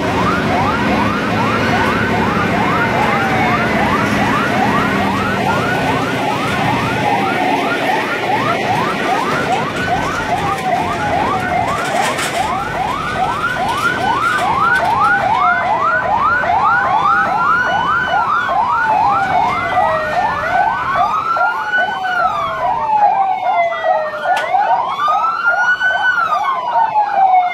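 Several fire truck sirens sounding at once: rapid yelping sweeps overlapping one another, with slower rising-and-falling wails taking over in the second half, over the low rumble of truck engines.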